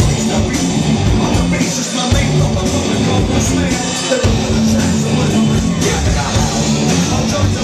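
Live rock band playing loud, with drums, heavy low end and vocals, recorded in the room on a small camcorder.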